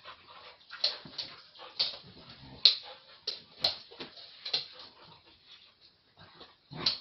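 Two dogs play-fighting, giving short, sharp vocal sounds in quick irregular bursts, a dozen or so, the loudest a little under three seconds in.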